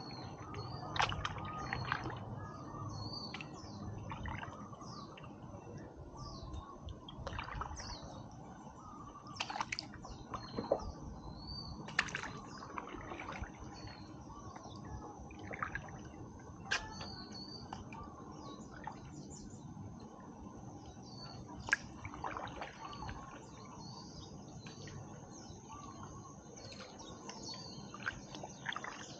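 Water dripping and splashing lightly around a stand-up paddleboard as the paddle dips, with a bird chirping repeatedly in short high notes.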